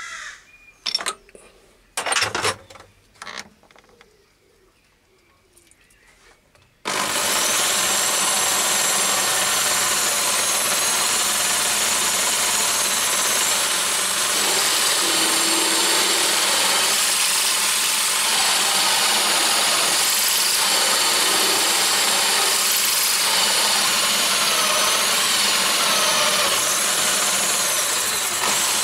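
Clicks and knocks as the tooling is handled, then about seven seconds in an electric power drill starts suddenly and runs steadily, turning a lathe toolpost drill whose 6 mm bit cuts into a 316 stainless steel bar. A high whine wavers as the load on the bit changes.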